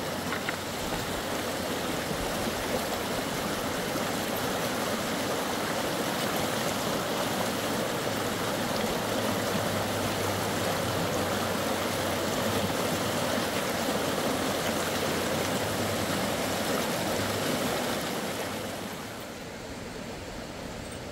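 Fast, shallow mountain river rushing over stones: a steady, even sound of running water that grows quieter near the end.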